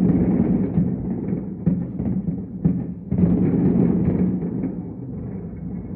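Aerial fireworks booming: a string of dull, muffled thuds over a continuous low rumble, with a louder burst about three seconds in.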